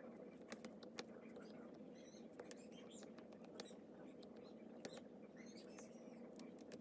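Faint taps and short squeaks of a disc-tip stylus on a tablet's glass screen as it strokes in colour, over a low steady hum.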